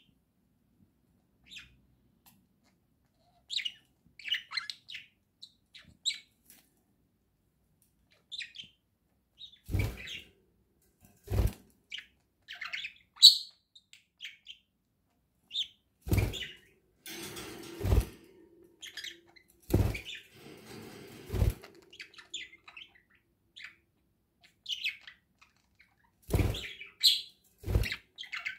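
Budgerigars chirping, with many short, high calls scattered throughout. Loud thumps break in about eight times from a third of the way in, mostly in pairs, with a rustling stretch in the middle.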